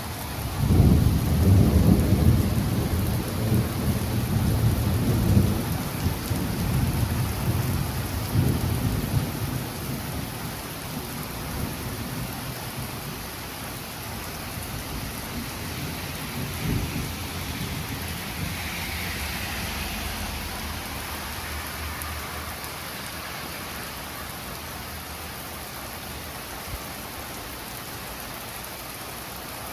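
Thunder rumbling from a cloud-to-ground lightning strike, loudest in the first few seconds and dying away over about ten seconds, with a couple of weaker rumbles later. Heavy rain keeps up a steady hiss underneath.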